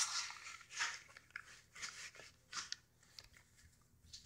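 Clothing and a rubbery-surfaced inside-the-waistband holster rubbing and rustling as they are handled at the waistband: several soft scrapes, about one a second.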